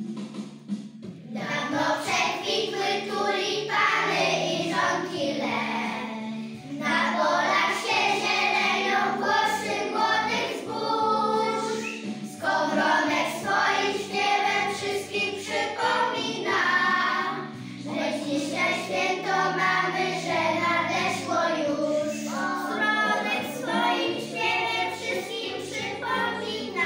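A group of young children singing a song together over an instrumental accompaniment with steady low notes; the voices come in about a second and a half in.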